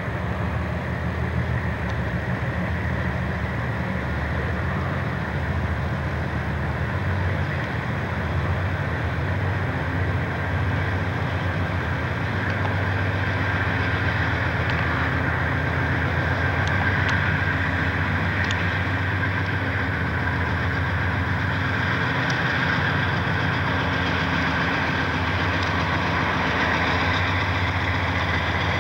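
Diesel engines of CSX freight locomotives running steadily with a deep drone as the train rolls slowly by. A higher hiss grows a little stronger about halfway through.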